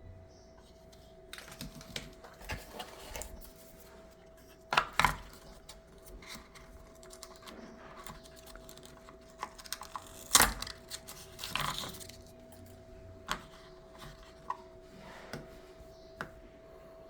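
Packaging and small plastic parts being handled: irregular light clicks, taps and rustles, with two sharper knocks about five and ten seconds in. A faint steady hum runs underneath.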